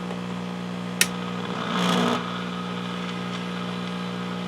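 The 1940 RCA 16X3 vacuum-tube radio hums steadily through its speaker, a nasty low hum that the owner takes for a sign that something is connected wrong in the set. A sharp click comes about a second in, and a short rush of noise follows just before two seconds.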